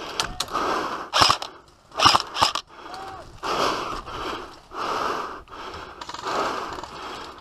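Heavy breathing close to the microphone, a breath about every second and a half, after a few sharp cracks in the first two seconds or so.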